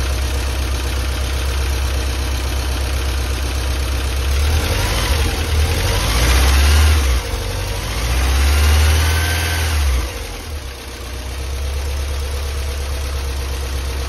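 Porsche 968's 3.0-litre four-cylinder engine running just after its first start, revved twice by hand at the throttle. Each rev rises and falls, one about four seconds in and one about eight seconds in, and then the engine settles back to a steady idle.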